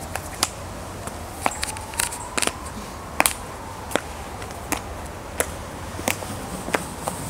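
High-heeled boots clicking on pavement in an uneven walking rhythm, about one step every half to three-quarters of a second. A faint siren slowly rises and falls behind the steps.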